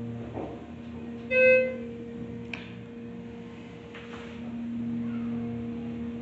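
A single electronic elevator ding about a second and a half in, sharp at the start and fading within half a second, over a steady low hum.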